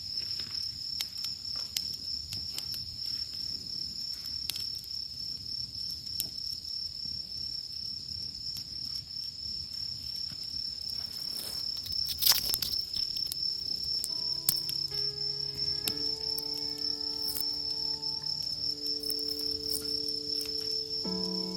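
Small, weakly burning campfire giving scattered soft crackles and pops, one sharper pop about 12 seconds in, over a steady high insect trill. Soft music with held notes comes in about two-thirds of the way through.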